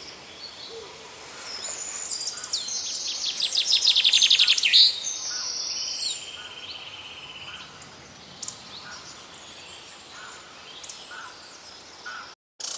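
Birds singing: a loud, fast trill mixed with high whistled notes from about two to six seconds in, then scattered fainter chirps. The sound cuts out briefly near the end.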